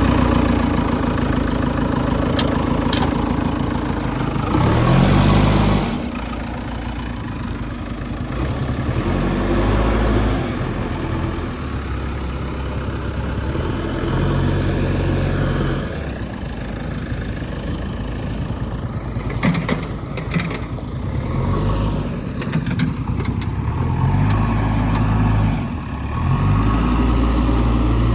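A heavy diesel engine running loud and close, its speed rising and falling every few seconds as it works under changing load.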